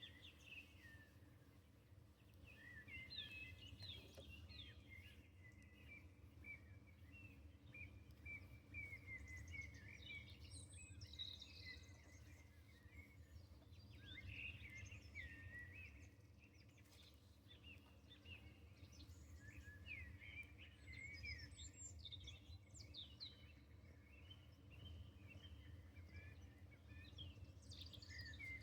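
Songbirds singing faintly, a run of short chirps and trills that goes on throughout, over a steady low background hum.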